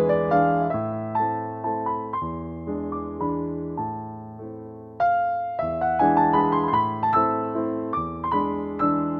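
Background electric piano music: struck chords and melody notes fading after each strike, easing off in the middle and coming back louder about five seconds in.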